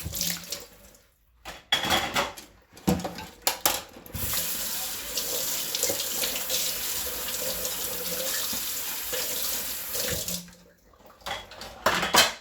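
Kitchen tap running into a sink during hand dish-washing, broken up early on by splashes and knocks, then a steady stream for about six seconds that stops suddenly. Sharp clatters of dishes near the end.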